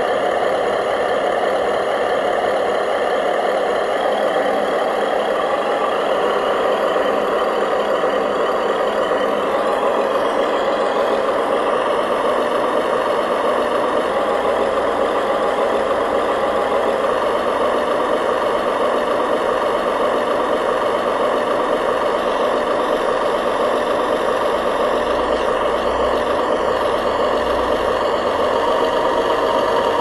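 Radio-controlled construction model running steadily, giving an even engine-like drone with no breaks, a little more low rumble near the end.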